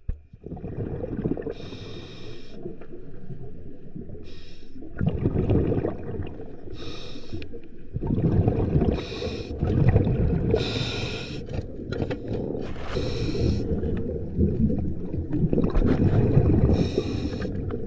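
A diver's breathing regulator heard through an underwater camera. Short hisses come every two to three seconds over a steady muffled bubbling and rumble.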